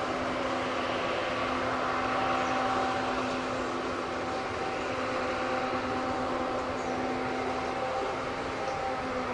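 Steady engine drone with a constant low hum, from a combine harvesting corn.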